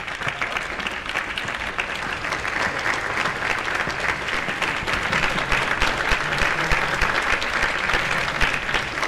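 An audience applauding: many hands clapping, growing louder over the first few seconds and then holding steady.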